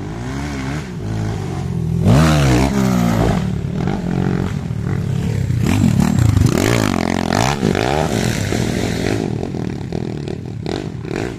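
Small single-cylinder four-stroke 125 cc dirt bike engine revving up and down as the rider works the throttle over a bumpy track. It grows louder as the bike comes near and passes close by, then fades away.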